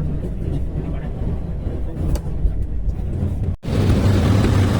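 Speedboat engine running steadily with a low hum. About three and a half seconds in the sound breaks off sharply and returns louder, the engine joined by a rushing hiss.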